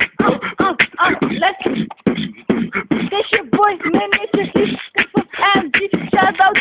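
A person beatboxing: rapid mouth-made drum strokes mixed with short pitched vocal sounds.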